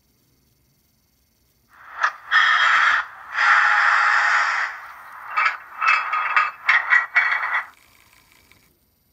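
Märklin model diesel locomotive and its Telex coupler working in a run of loud noisy bursts. It starts about two seconds in with two longer spells, followed by several short, quick ones, and stops about eight seconds in. The locomotive is being driven in spurts against the coupled wagon so that the remote-controlled Telex coupling releases.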